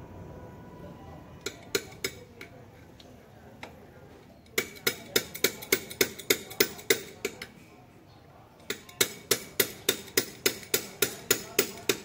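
Rapid sharp metallic clicks, about four to five a second, from a hand tool working on metal: a few scattered clicks, then a run from about four and a half seconds in and a longer run from about nine seconds on.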